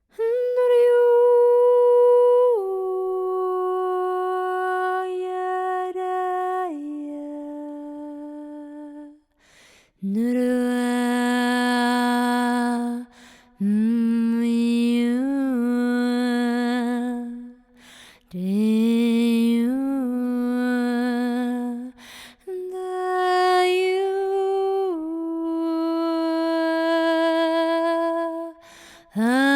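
Wordless, unaccompanied sound-healing toning by a single voice. The voice hums long held notes that step down in pitch, with short upward slides, in several phrases broken by pauses for breath.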